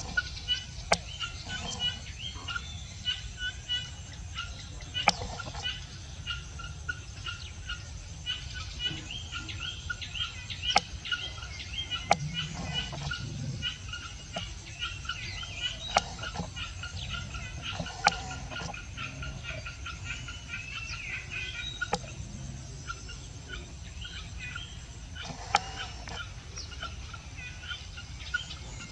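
Birds calling in the background, short chirping notes repeated over and over, with scattered sharp clicks and a steady low rumble underneath.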